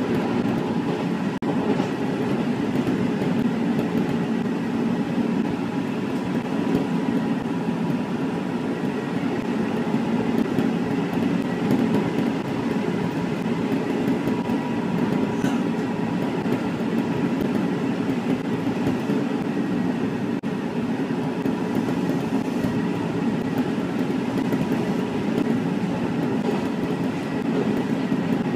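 Nankai Koya Line electric commuter train running at speed, about 75 km/h, heard from inside the driver's cab. The wheels on the rails make a steady rumble, with a faint steady high tone running under it.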